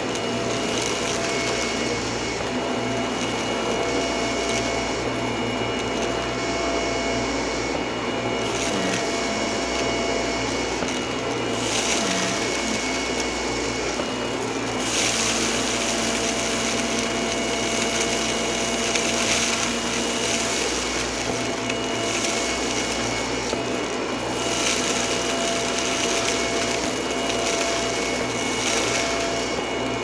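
Shark upright vacuum cleaner running steadily over a rug, a constant motor hum with a high whine. From about a third of the way in, stretches of gritty, crackling hiss come and go as it sucks up scattered crunchy debris.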